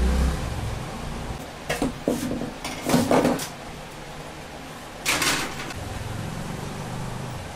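Wiring connectors being worked loose and pulled from the power supply board inside a Canon iR3300 copier: a few short plastic clicks and scrapes, in a cluster about two to three seconds in and once more about five seconds in.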